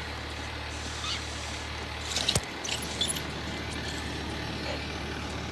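Heavy rescue fire truck's diesel engine idling with a steady low rumble. A few brief clicks and one sharp knock come about two seconds in.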